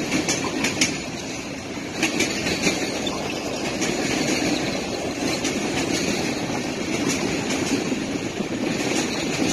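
Freight train's boxcars and tank cars rolling past: a steady rumble of steel wheels on rail with scattered sharp clicks.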